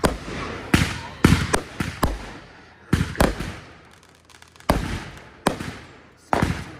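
Fireworks going off: about a dozen sharp bangs at uneven intervals, some in quick clusters, each trailing off in a short echo.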